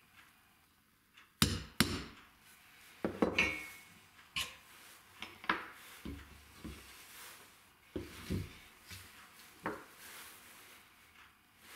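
Two sharp hammer taps on a metal tool standing in a hole in a plywood jig, then a run of knocks and clinks as metal hand tools and wood are set down and handled on a wooden workbench. One clink rings briefly.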